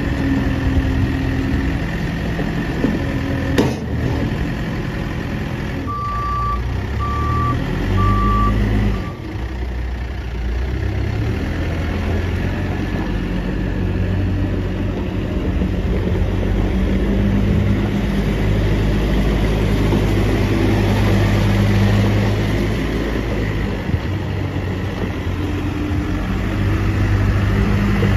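Case 580 Super M backhoe's 95 HP Case diesel engine running, its speed shifting a few times. The reverse alarm beeps three times a few seconds in, and there is a single sharp click before that.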